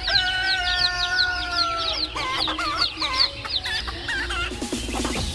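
Many birds calling together, with constant quick, high, falling cheeps. A long, drawn-out call is held for about two seconds at the start, and a short fast run of low clucks comes near the end.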